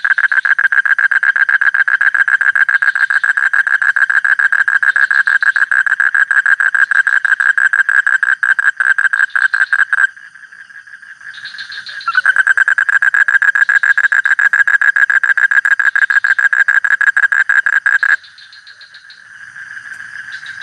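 A frog calling in long, rapid pulsing trills. The first trill runs for about ten seconds and stops; after a short pause a second one runs for about six seconds, and a fainter trill follows near the end.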